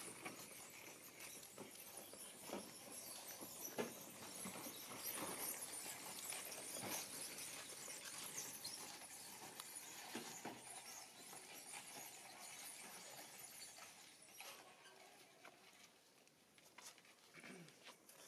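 Faint outdoor ambience: a steady high hiss with scattered soft taps and rustles, growing quieter in the last few seconds.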